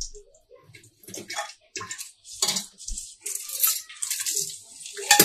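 Whole spices and chopped green chillies hitting hot ghee in an aluminium pressure cooker: scattered crackles and clatter, then a loud steady sizzle setting in near the end as the spices start to fry.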